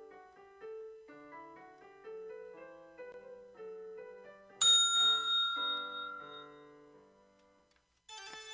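Light keyboard music of short notes, then a single loud electronic bell ding about four and a half seconds in that rings out and fades over about three seconds: the timed signal telling exam candidates to move to the next station. A different piece of music starts just before the end.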